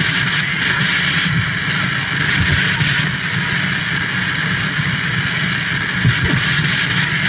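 Turntable noise: a vinyl picture disc playing under the stylus, amplified into a steady, dense wash of noise with an irregular low rumble underneath.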